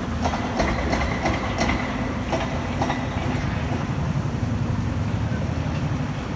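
Footsteps clicking on paving stones, a quick regular run of steps in the first three seconds that then fades, over a steady low rumble of city traffic.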